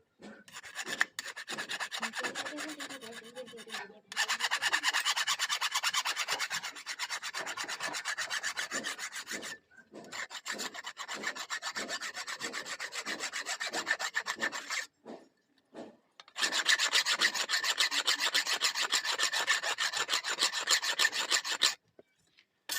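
A hand file rasping rapidly back and forth over a katari blade being sharpened, in four runs of quick strokes with short breaks between them.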